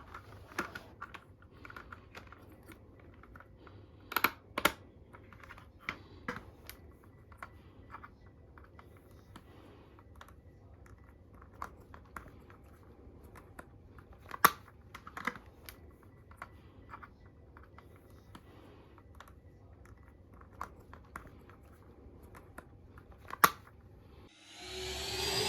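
Scattered light clicks and taps of plastic parts being handled, typical of an air conditioner's covers and louvers being unclipped and taken off by hand. Near the end a rising sweep leads into music.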